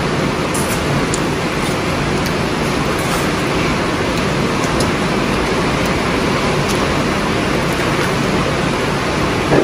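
Heavy rain pouring down, a steady loud hiss with no break, with a few faint clicks over it.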